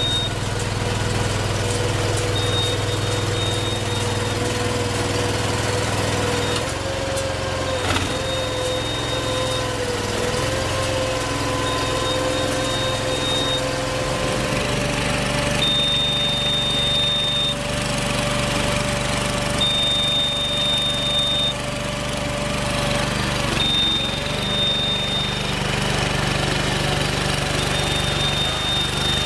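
A tracked car-moving crawler running with a steady mechanical drone, while a high warning beep sounds for about two seconds, repeating every four seconds.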